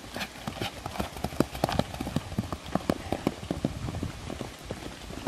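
Pony's hooves striking turf in quick succession as it canters, an uneven run of several hoofbeats a second.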